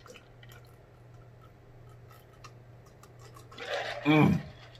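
Quiet gulping and small mouth clicks as a man drinks from a plastic jug. Near the end comes a loud vocal sigh that slides down in pitch as he lowers the jug.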